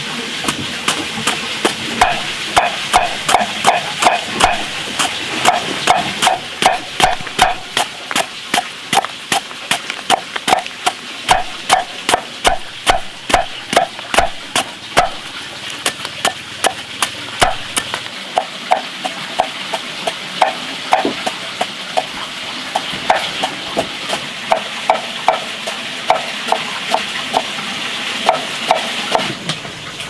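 Large knife chopping banana stem on a wooden block in a fast, even rhythm of about three strokes a second, each a sharp chop with a dull knock from the block. The strokes are heaviest in the first half and grow lighter after about eighteen seconds in.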